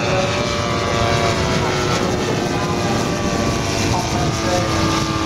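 Engines and propellers of two giant-scale radio-controlled model aeroplanes flying overhead, a steady drone with several pitch lines over a low rumble.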